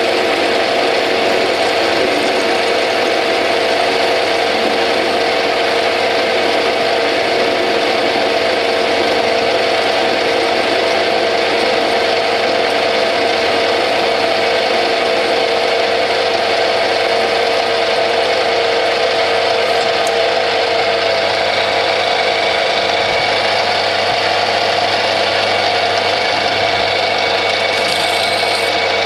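Bernardo P 600 G lathe running under load while a parting-off blade in a rear toolpost cuts steadily through a spinning steel bar, with no squeal, chatter or rattle: a clean, stable parting cut. The blade breaks through near the end.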